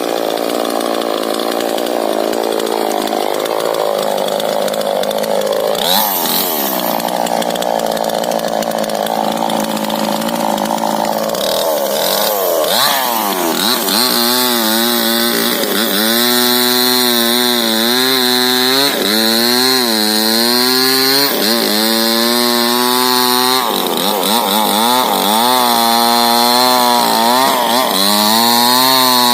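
Two-stroke chainsaw cutting into a rubber tree trunk. At first the engine runs rough under load in the wood. From about halfway its tone turns clearer, with the pitch sagging and picking up again every second or two as the chain bites and frees.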